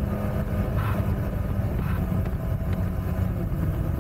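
MotoJet mini jet boat's engine running steadily as the boat travels under way, heard from on board.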